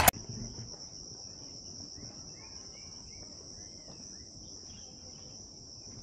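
A steady, high-pitched insect chorus, with a few faint bird chirps about two to three seconds in.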